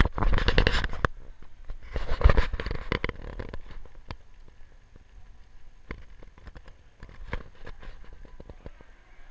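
Handling noise from a hand-held camera: loud rustling and rubbing against the microphone in two bursts over the first three seconds, then quieter scattered clicks and taps as it is carried along.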